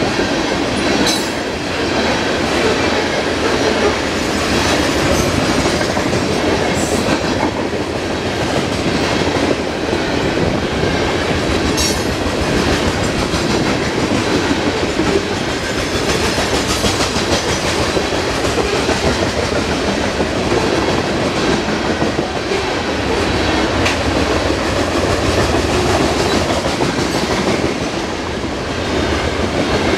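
Loaded coal hopper cars of a unit coal train rolling past at a steady pace: a continuous loud rumble and clatter of steel wheels on the rails. A few brief, sharp, high metallic sounds cut through it.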